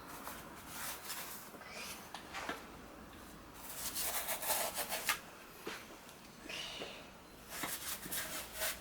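Soapy water being rubbed onto a motorcycle wheel rim and tyre bead: a series of short scratchy rubbing strokes, the longest about four seconds in.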